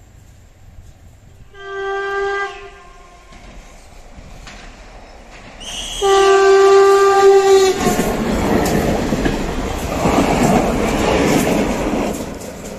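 Renfe class 446 electric multiple unit sounding its horn twice as a warning for a level crossing: a short blast, then a longer one about four seconds later. The train then passes close by with a loud, steady rumble of wheels on the rails that fades near the end.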